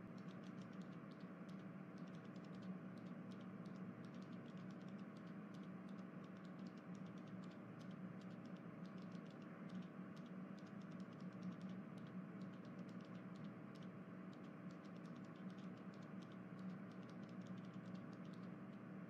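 Faint, fast, irregular clicking, several clicks a second, over a steady low hum.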